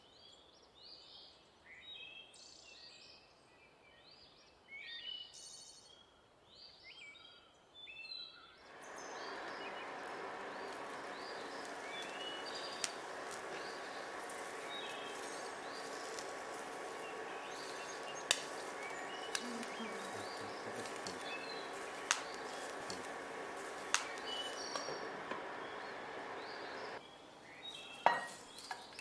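Oil sizzling in a frying pan, likely with the corn in it: scattered faint crackles at first, then from about nine seconds in a steady sizzle with a few sharp pops, which drops away shortly before the end.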